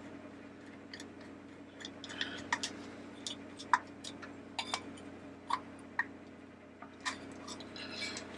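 Light, irregular clicks and taps of plastic parts as the battery base of a Mr. Christmas animated teacup is handled and turned by hand to line up its drive shafts, over a faint steady hum.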